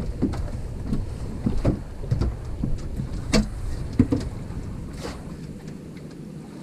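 Wind rumbling on the microphone in an open fishing boat, with irregular knocks and clunks from the boat and gear. The loudest knocks come about three and four seconds in.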